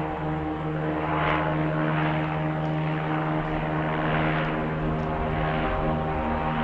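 Propeller engines of a blimp flying overhead: a steady engine hum with a rushing noise that swells and fades every second or so.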